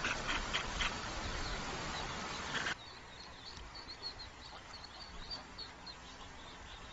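Mother duck quacking in a rapid run of calls, several a second, over steady outdoor noise, stopping after about a second. About 2.7 s in, the sound cuts abruptly to a quieter background with faint high peeps of ducklings.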